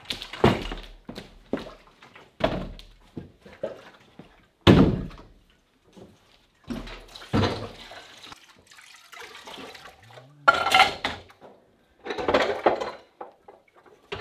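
Irregular hollow knocks and thumps of full 7-gallon plastic water jugs being carried and set down on a wooden floor, the loudest about five seconds in. Near the end, clattering at the sink's dish rack.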